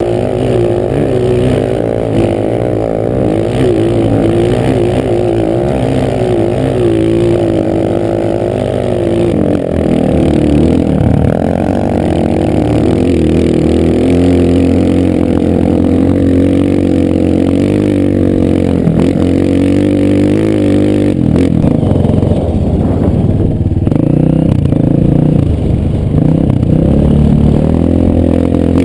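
Dirt bike's single-cylinder four-stroke engine running under load, heard from on board, its pitch rising and falling with the throttle, with a few brief dips as the rider backs off.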